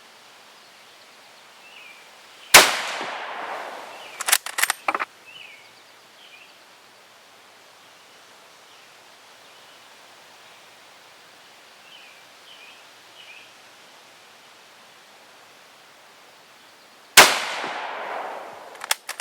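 Two rifle shots from a Kar98k Mauser bolt-action firing 7.62x51mm NATO, about fifteen seconds apart, each with a long echoing tail. A second or two after each shot come several sharp metallic clicks as the bolt is worked to eject the case and chamber the next round.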